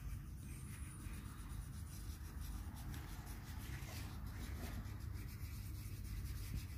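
Felt-tip markers rubbing and scratching on paper as a child colours in, faint and irregular over a low steady background hum.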